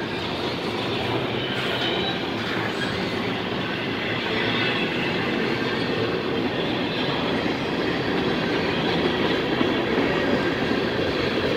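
Freight train cars rolling past close by: a steady rumble and rattle of steel wheels on rail, with now and then a faint squeal. The cars passing are double-stack container well cars, then covered hopper cars.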